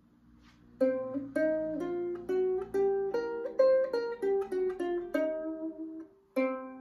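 Ukulele playing the C blues scale as a riff of single plucked notes, climbing from the open C string up the scale and back down, about a dozen notes, ending on a low note struck near the end and left ringing.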